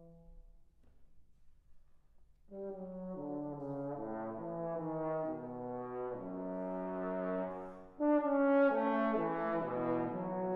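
Trombone quartet playing: a held chord cuts off at the start, then after a pause of about two seconds the four trombones come back in with moving chords, entering louder again about eight seconds in.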